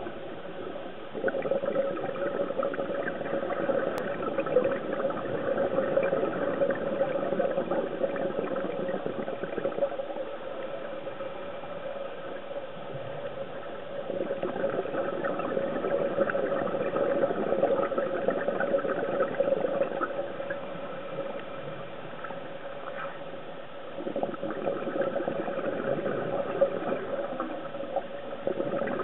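Underwater sound through a diving camera: bubbling, gurgling water that swells for several seconds at a time and eases off in between, over a steady hum.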